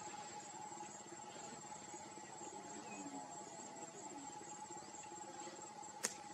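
Faint, steady insect chorus: a thin high-pitched trill and a lower steady tone that both hold unbroken. A single sharp click sounds near the end.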